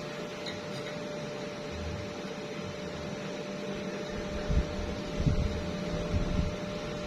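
A steady machine hum with one constant mid-pitched tone running through it, and a few low thumps about two-thirds of the way in.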